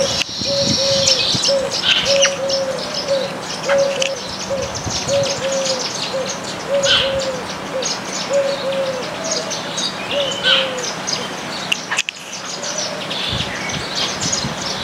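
Small backyard birds, baya weavers and munias, chirping in short high notes throughout. Behind them another bird keeps up a steady low hooting call, about two or three notes a second, which stops about eleven seconds in.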